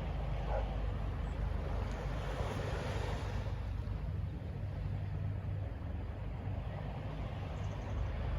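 Distant city traffic and wind: a steady low rumble that swells for a moment about two to three seconds in.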